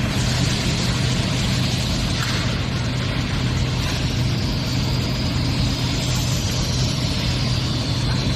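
Shell core moulding line machinery running steadily in a foundry: a constant low hum under a broad hiss, with a faint high whine that falls slightly in pitch in the second half.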